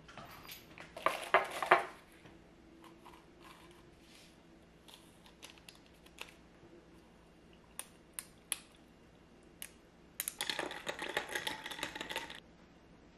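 A spoon stirring ice cubes in a glass of cold tea, a rapid run of clinks against the glass lasting about two seconds near the end. Earlier there is a short burst of handling clatter and a few light single clicks.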